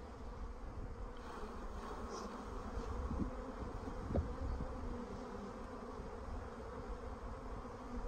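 Honeybees buzzing around an opened hive and a board of shaken-off bees, with a brief thump about four seconds in.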